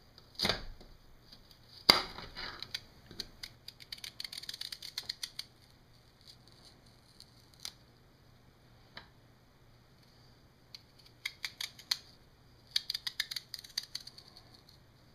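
Knife slicing Jerusalem artichoke thinly on a cutting board: quick runs of sharp taps as the blade strikes the board, in two flurries, with a few single taps between.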